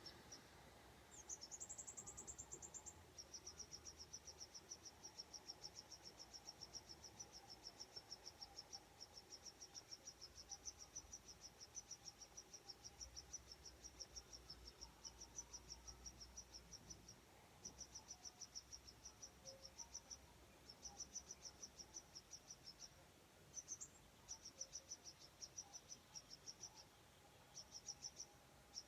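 Faint insect chirping, typical of crickets: a high, rapidly repeating pulsed chirp that runs on in stretches of a few seconds with brief pauses between them.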